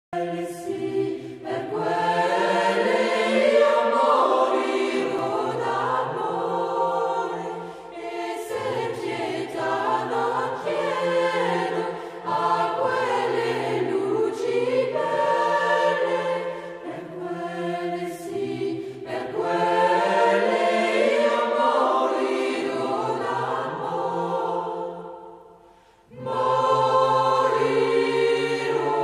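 Background music of a choir singing slow, held chords in long phrases. It fades out near the end and comes back in a moment later.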